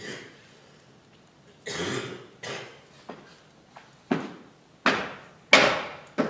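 A series of sharp knocks, starting about a second and a half in, roughly one every 0.7 seconds and growing louder, each with an echo trailing after it.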